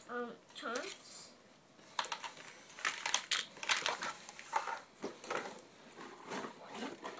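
Crinkling and clattering of Micro Chargers plastic track pieces and cardboard packaging being handled, in quick irregular clicks and rustles from about two seconds in. A short voice sound comes in the first second.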